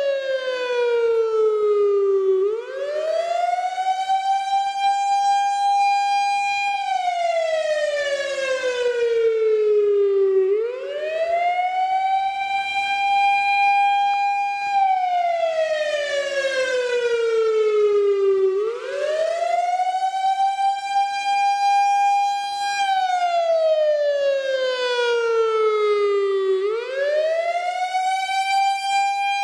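Outdoor warning siren wailing in a slow repeating cycle, about every eight seconds. Each time it rises quickly to a high note, holds it for a few seconds, then slides slowly back down before rising again.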